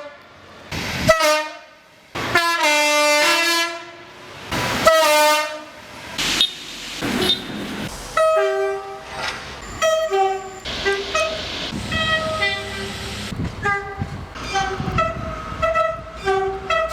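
Train horns sounding: a few long blasts in the first six seconds, one stepping between two pitches, then a long run of short toots alternating between a high and a low note, about two or three a second.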